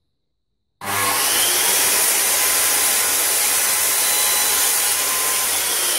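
Corded circular saw starting about a second in and running loud and steady as it crosscuts a wooden jig bar to length.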